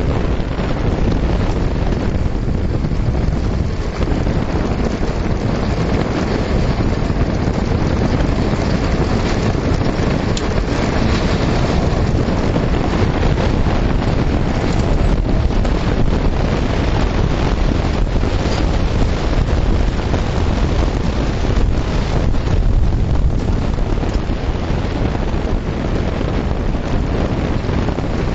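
Wind buffeting the microphone over the steady rumble and rattle of an unpowered billy kart's wheels rolling over a dirt road.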